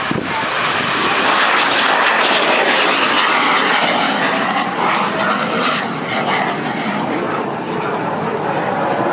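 F-86 Sabre jet flying past: a loud, steady rushing engine noise, loudest a couple of seconds in and easing slightly after.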